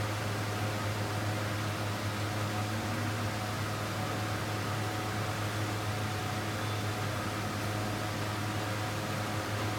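Steady machine hum with a hiss over it, as from an electric motor or fan running without pause.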